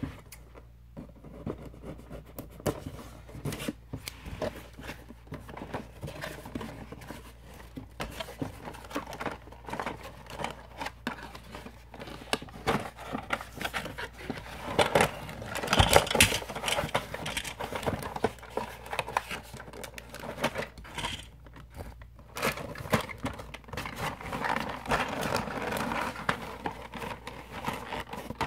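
Cardboard toy box being opened and handled: flaps pulled and torn open, with irregular scraping, tapping and crinkling of cardboard, loudest about halfway through.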